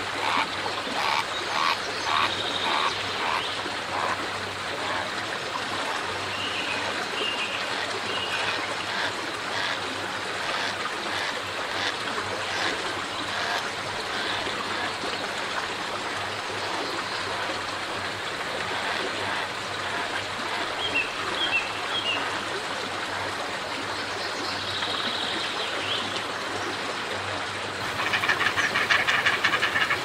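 Wetland ambience: a steady hiss of background noise with frogs croaking in quick pulses over the first few seconds and a few short high bird chirps. Near the end it switches abruptly to a louder, fast rattling chorus.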